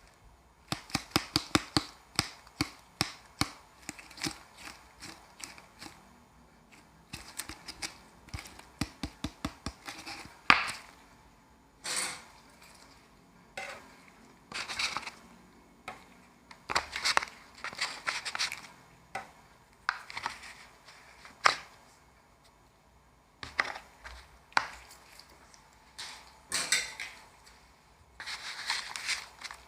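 Metal spatulas on an ice cream roll machine's frozen steel pan. Rapid runs of sharp taps, about four or five a second, come first, chopping the ice cream and toppings. Longer, separate scraping strokes follow, spreading or rolling it up.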